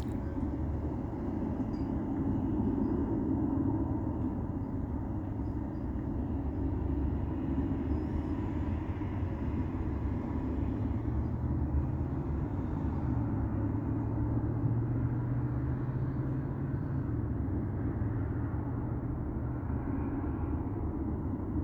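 Steady low rumble of a vehicle running, with a low hum that comes in about halfway through and drops away a few seconds later.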